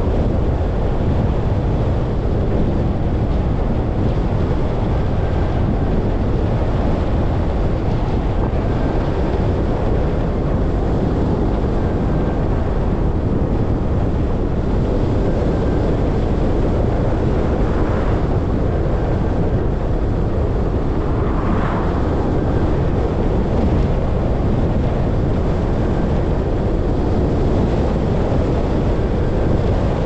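A car driving on a wet highway: steady road and wind noise with no break.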